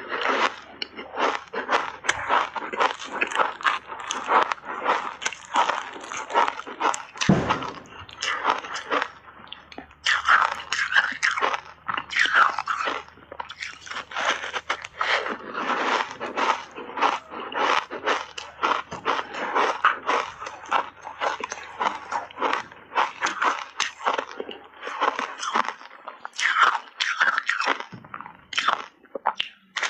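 Crunching and chewing of a refrozen ice bar coated in matcha powder, big bites of ice cracking between the teeth in dense, rapid crunches, with a couple of short pauses.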